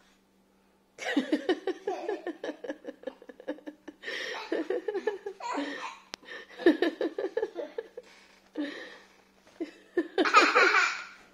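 Laughter in long runs of rapid, pulsing bursts with short breaks. It starts about a second in and is loudest near the end.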